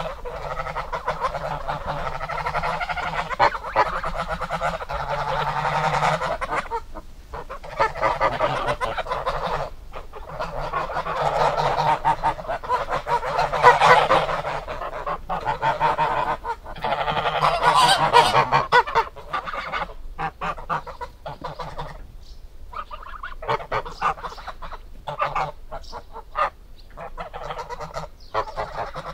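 Geese honking, many calls overlapping in a dense chorus, then thinning to shorter, separate honks in the last third.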